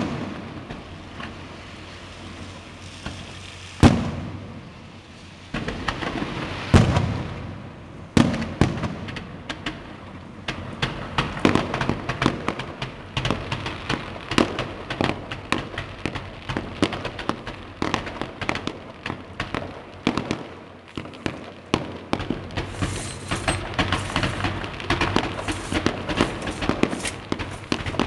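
Aerial fireworks of a Maltese kaxxa infernali. A few single loud bangs, each with an echoing tail, come in the first eight seconds. From about ten seconds in they give way to a dense, continuous barrage of rapid bangs and crackles.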